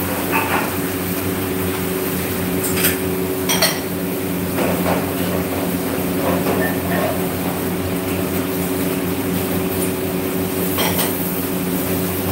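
A steady low mechanical hum made of several tones, with a few short metallic clinks of steel kitchenware: one about three seconds in, another a moment later, and one near the end.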